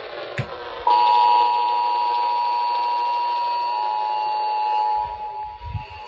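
Emergency Alert System two-tone attention signal, the 853 Hz and 960 Hz tones sounding together as one steady, shrill tone. It starts abruptly about a second in, after a short click, and becomes much quieter about five seconds in.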